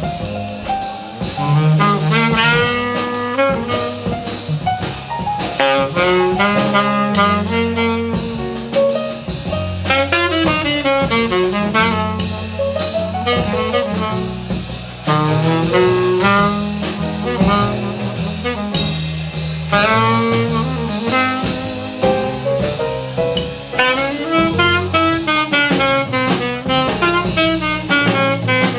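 Jazz music: a saxophone playing a flowing melodic line over bass notes and a drum kit with cymbals.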